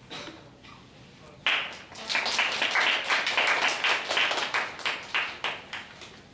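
Audience applauding: clapping starts suddenly about a second and a half in, holds for a few seconds, then thins out toward the end.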